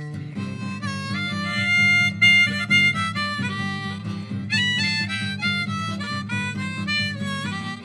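Blues harmonica solo, played in a neck rack over a steady guitar accompaniment; the harp bends and shifts between notes and is loudest about two seconds in.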